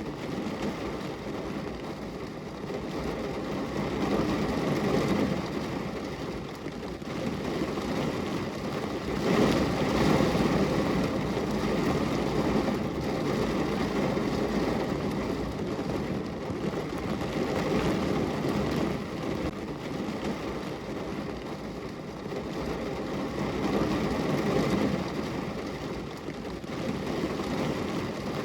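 Steady rain, a continuous rushing noise that swells and eases every few seconds.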